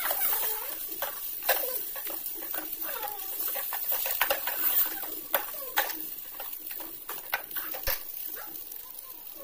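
A steel spoon stirring peas and onions in an aluminium kadhai, with frequent sharp clinks and squeaky scrapes of metal on metal over a steady sizzle of frying.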